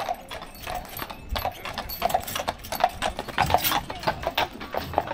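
Horse hooves clip-clopping on a paved road as a horse-drawn carriage passes close by: quick, irregular hoofbeats, several a second, loudest a few seconds in as the horses go past.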